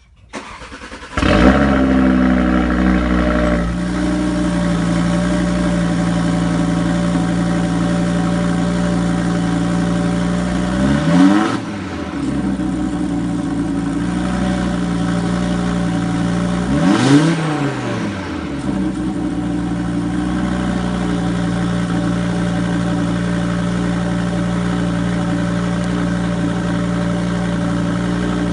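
Audi RS3's 2.5-litre five-cylinder engine starting about a second in with a brief flare of revs, then settling into a steady idle. It is blipped twice, a short rise and fall in revs each time, and drops back to idle.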